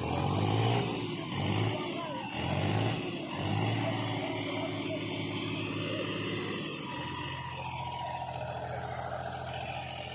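Diesel engine of a 295 DI Turbo tractor revving in several surges, then running steadily, as it drives the hydraulic tipper to raise the loaded trolley and dump the earth.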